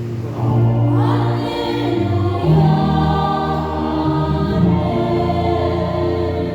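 Church choir singing a Vietnamese Catholic Easter hymn in sustained chords, with an upward sweep about a second in.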